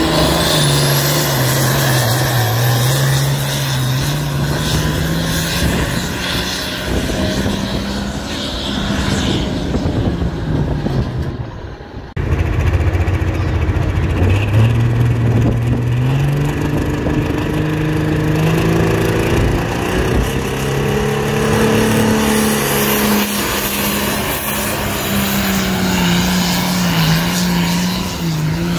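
A pulling tractor's engine running hard under load as it drags the weight-transfer sled down the dirt track, its pitch rising and falling, with a high whine rising in the first second. It breaks off about 12 seconds in and another tractor pull follows.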